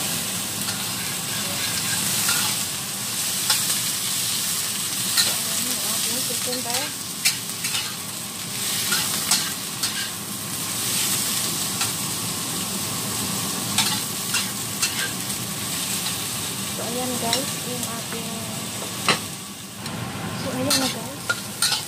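Cucumber slices sizzling as they are stir-fried in a wok, with a metal spatula scraping and clicking against the wok many times.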